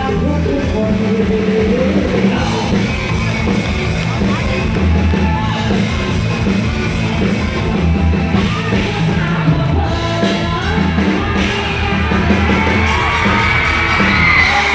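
Live band music played loud through PA speakers, with a steady beat and bass, and a woman singing into a microphone over it. Yells rise over the music near the end.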